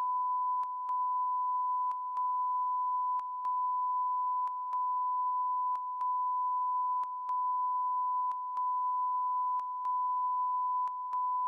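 A never-ending beeping noise on a television news broadcast: one steady, pure, high-pitched tone like a line-up test tone. It is a broadcast sound fault. The tone dips briefly with a click about every second and a third.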